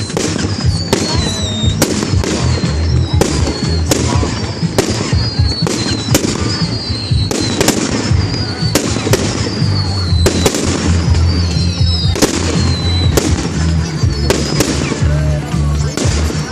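Fireworks display in full swing: a rapid, unbroken run of shell bursts, several bangs a second, with falling high-pitched whistles, over music played for the show.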